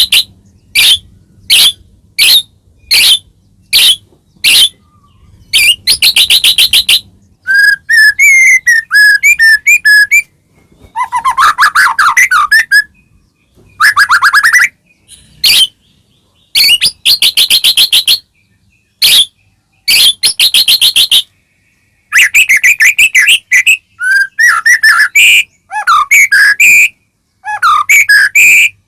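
White-rumped shama singing loudly: short bursts of rapid rattling chatter alternating with warbled, gliding whistled phrases, separated by brief pauses.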